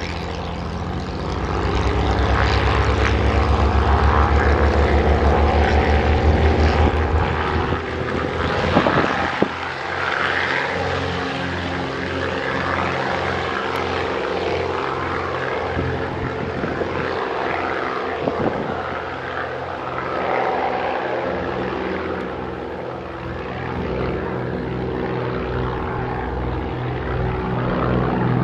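Britten-Norman BN-2A Islander's twin piston engines and propellers droning at takeoff power during the takeoff roll and climb-out. The sound swells about two seconds in and is loudest for the next few seconds, then settles into a steady drone.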